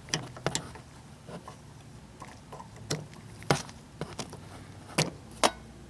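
Scattered sharp clicks and light knocks from hands handling hardware, about eight spread over several seconds, the loudest about three and a half and five seconds in.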